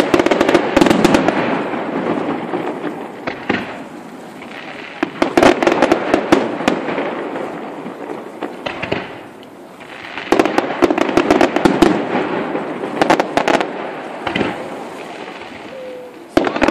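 Fireworks going off in three volleys of sharp bangs and crackling, at the start, around five seconds in and from about ten seconds in, each dying away before the next.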